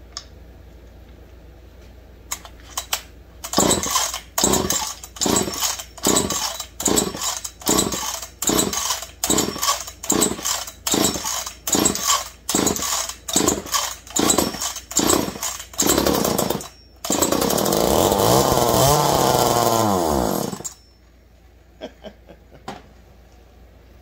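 Old two-stroke chainsaw powerhead being pull-started: about two dozen quick pulls of the starter cord, roughly two a second, then the engine catches about 17 seconds in and runs for a few seconds before dying away with falling pitch.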